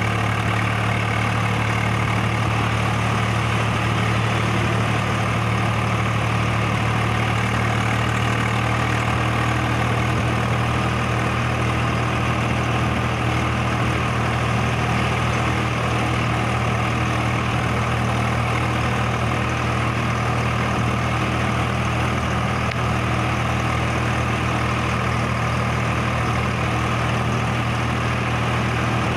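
Swaraj 735 XT tractor's three-cylinder diesel engine running steadily at road speed while pulling a loaded trolley, heard from the driver's seat. The engine note holds even, with no change in revs.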